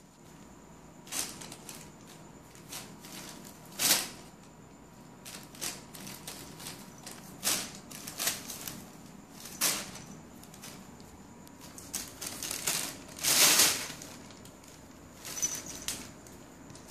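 A thin plastic carrier bag crinkling and rustling in irregular bursts as a cat pushes its head into it and paws at it; the longest, loudest rustle comes about three-quarters of the way through.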